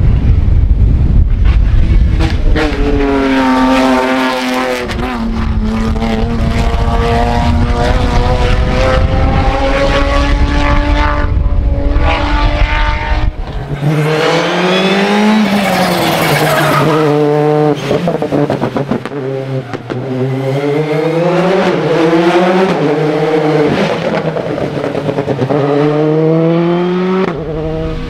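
Rally cars driven flat out on an asphalt stage, engines revving hard and dropping back with each gearshift. From about halfway, a Citroën C3 Rally2's turbocharged 1.6-litre four-cylinder climbs through a bend, its pitch repeatedly rising and falling as it shifts.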